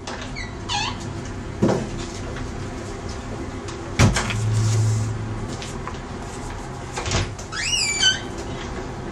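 A door being opened and closed: several sharp knocks and short squeaks, with a brief low hum about four seconds in.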